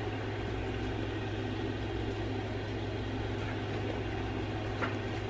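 Steady low hum and hiss of room tone, like an air conditioner or fan running, with one faint tick near the end.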